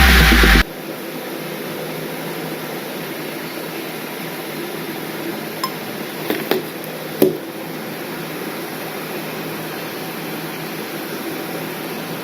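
Electronic dance music that cuts off abruptly under a second in, then a steady background hiss with a few light clicks and taps, like small objects being handled, a little past the middle.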